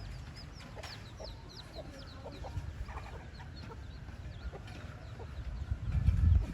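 Chicks peeping over and over in short, high, falling chirps, with a mother hen clucking low among them. A low rumble swells near the end.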